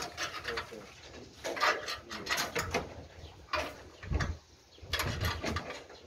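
Ratchet wrench clicking in short bursts of rapid clicks, tightening the belt tensioner on a rice harvester.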